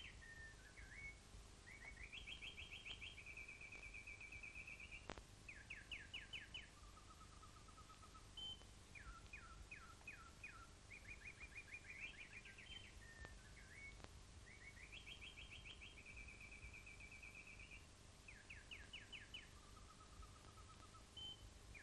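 Faint songbird singing: repeated high phrases of quick trills and runs of short rapid notes, over a low background hiss.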